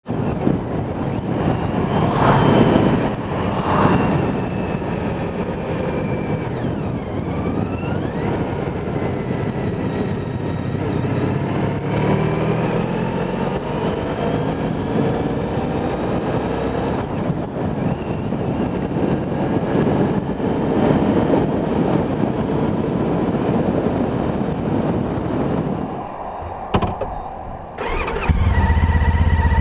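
Honda ST1300's V4 engine running under way, with wind rush on the helmet microphone; its pitch rises in stretches as the bike accelerates. Near the end the ride sound gives way to music.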